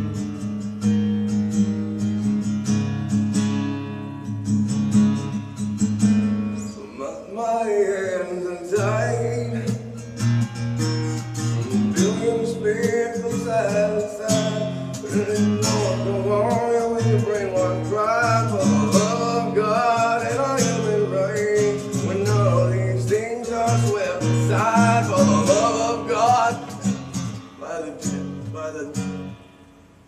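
Acoustic guitar strummed in steady chords, joined about seven seconds in by a man singing through a vocal effects pedal. Guitar and voice stop just before the end.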